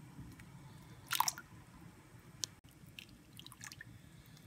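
Pieces of raw meat dropped into a stainless steel pot of water, making a few wet splashes and plops, the loudest about a second in, over a low steady hum.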